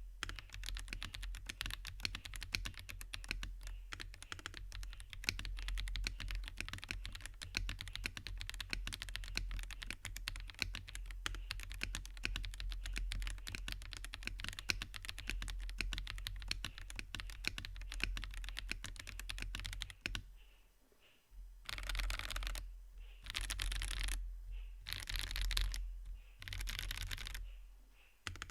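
IKKI68 Aurora R2 mechanical keyboard with Wuque Aurora Clear switches and Osume Sakura keycaps being typed on fast and steadily. About twenty seconds in the typing stops briefly, then comes back as four separate bursts of rapid keystrokes, each about a second long.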